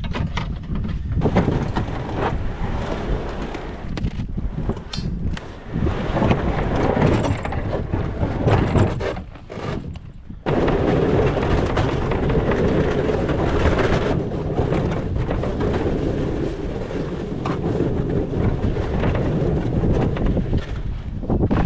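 Strong wind buffeting the microphone with a heavy low rumble, broken briefly about ten seconds in, along with footsteps crunching on snow-covered lake ice.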